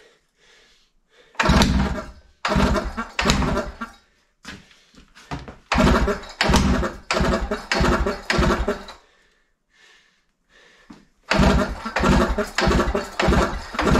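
Two-stroke engine of a Pionjar 120 gas-powered rock drill/breaker firing in rough bursts of one to three seconds, cutting out in between, as the fuel valve is turned shut after starting: the engine is running unevenly and close to stalling.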